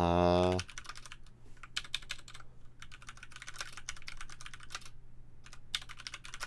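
Typing on a computer keyboard: a long, irregular run of key clicks. It opens with a short, loud, steady hum lasting about half a second.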